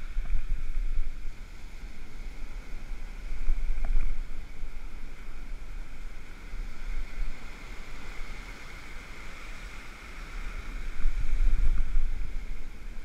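Rough surf washing up the beach, with wind buffeting the microphone in a low, uneven rumble that swells around four seconds in and again near the end.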